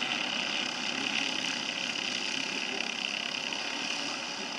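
Racing kart engines running steadily as several karts lap the circuit, heard from a distance as a continuous drone.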